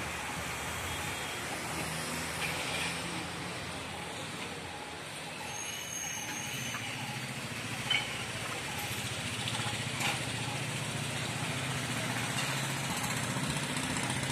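Outdoor background noise with a low running hum of a motor vehicle, and a short click about eight seconds in and another about ten seconds in.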